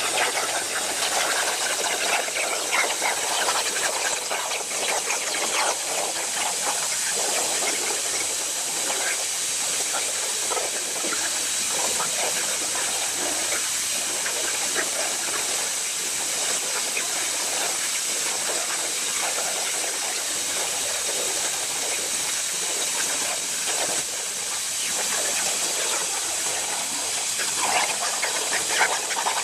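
CNC plasma cutter's torch arc cutting metal: a steady, loud hiss with a fine crackle.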